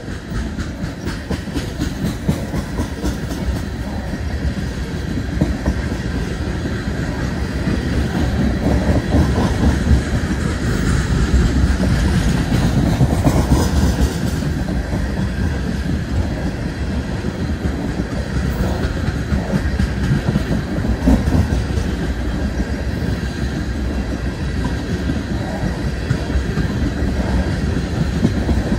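Freight train of tank cars rolling past: steel wheels clattering over the rail joints over a heavy, steady rumble, growing louder over the first several seconds.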